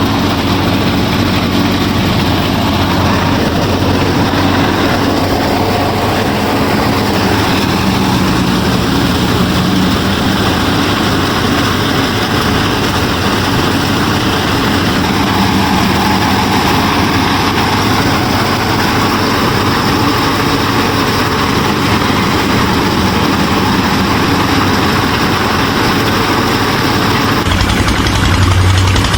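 Home-built miniature wheat harvesting machine running steadily, a continuous mechanical whirr and rattle. Near the end the sound changes, with a stronger low hum coming in.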